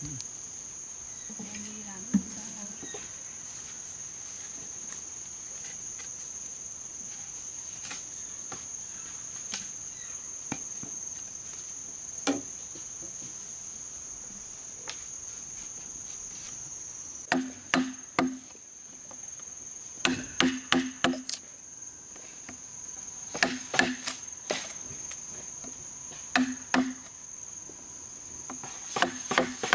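A chisel chopping a mortise hole in a green bamboo pole. A few single taps come first, then from about halfway there are repeated runs of quick, sharp strikes with a hollow knock from the bamboo. A steady high insect drone runs underneath.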